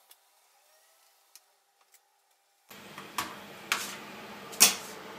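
Laptop plastic casing parts being handled and fitted together during reassembly, giving three sharp clicks and knocks, the loudest about two-thirds through. A low room hum starts abruptly about halfway through; before that it is near silent.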